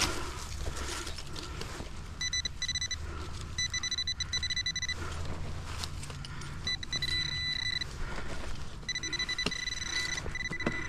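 Metal detecting pinpointer probe sounding a high buzzing beep in four bursts of about a second each, as it is pushed into the dug hole to home in on a buried coin. Soil is scraped and poked between the bursts.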